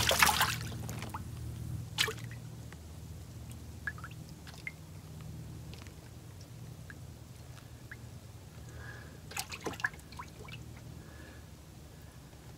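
Water splashing as hooked white perch are lifted from the lake, ending about half a second in. Then water dripping, with scattered light clicks and taps.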